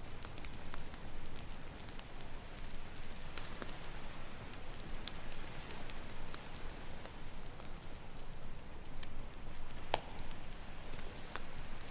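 Wood campfire crackling, with scattered sharp pops and one louder snap about ten seconds in, over a steady rushing wash of ocean waves.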